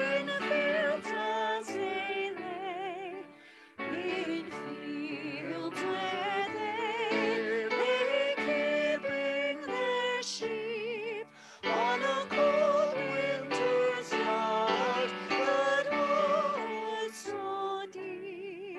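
Solo singing in an operatic style with a wide vibrato, over sustained accompaniment, phrased with short breaths about three and a half and eleven and a half seconds in.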